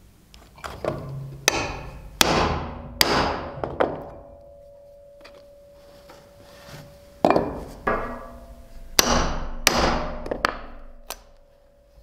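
Hammer blows on a steel slot punch cutting through belt leather on a wooden bench: two runs of sharp knocks, about five and then six, with a metallic ring hanging on after them.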